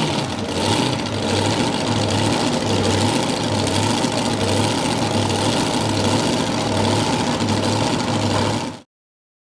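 Engines of a multi-engine modified pulling tractor idling, with a lumpy low throb that swells about once or twice a second. The sound cuts off suddenly near the end.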